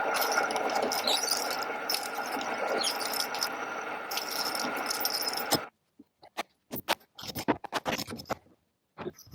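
A small machine tool running and cutting with a steady, squealing hiss, which cuts off suddenly about five and a half seconds in. Scattered short clicks and scrapes of handling follow.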